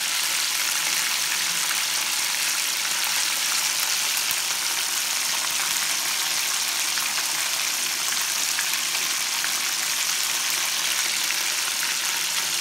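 Flour-coated chicken pieces deep-frying in hot oil: a steady, dense sizzle with fine crackling throughout.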